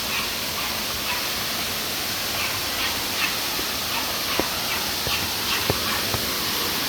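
Steady rush of a waterfall and river, with many faint short high chirps from some animal scattered through it and a few sharp knocks about four and six seconds in.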